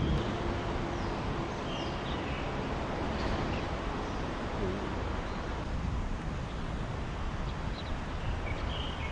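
Steady rushing outdoor background noise with a few short, high bird chirps scattered through it.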